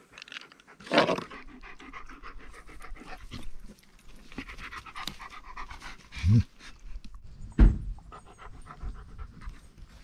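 Dog panting quickly, with a few louder knocks and thumps: one about a second in and two in the second half.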